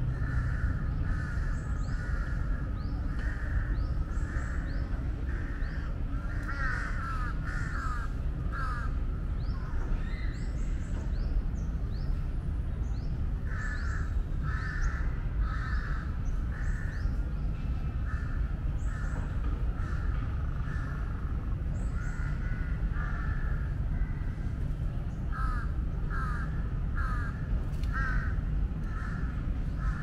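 Birds calling in repeated runs of short calls, with quick, higher rising chirps among them, over a steady low rumble.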